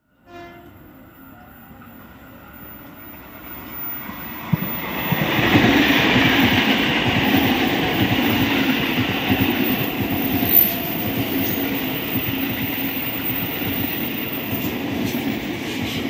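KRL Commuterline electric multiple unit approaching and then passing close by at speed, its wheels clattering over the rail joints. A horn sounds faintly at the very start, and the running noise swells loud from about four seconds in as the train draws level.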